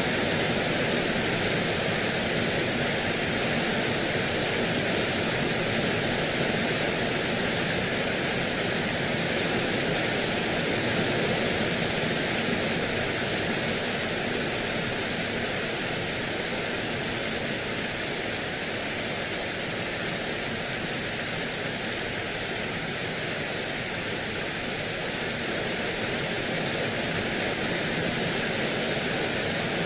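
Rain pouring steadily, an even hiss that does not change.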